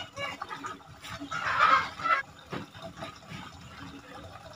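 A chicken calling loudly once for about a second, beginning a little over a second in.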